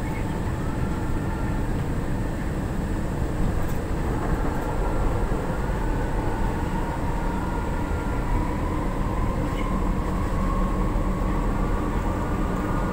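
Interior of an MRT-3 light rail train car in motion: a steady rumble and rattle of the running train, with a faint whine that rises slowly in pitch through the second half.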